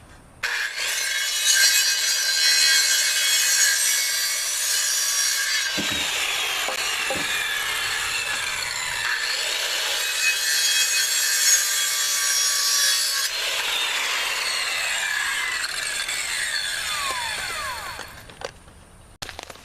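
Electric saw cutting wood in one long, continuous cut, its high whine holding steady, then falling in pitch as the blade runs down near the end.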